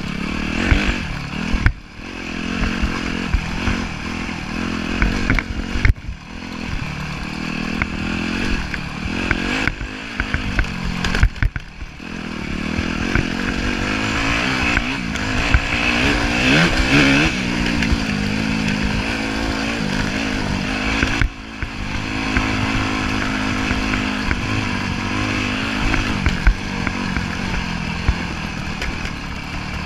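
2010 Yamaha YZ250F dirt bike's single-cylinder four-stroke engine being ridden hard, revving up and down through the gears. The note drops out briefly several times where the throttle is shut off, and climbs to its highest about halfway through.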